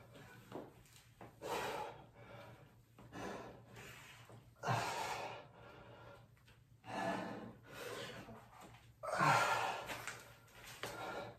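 A person breathing hard and gasping from the exertion of a long set of push-ups: a run of heavy breaths, the loudest about five and nine seconds in.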